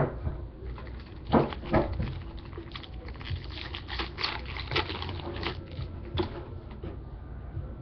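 A foil trading-card pack crinkling and crackling as it is handled and torn open, with two sharp crackles about a second and a half in, then the cards inside being handled.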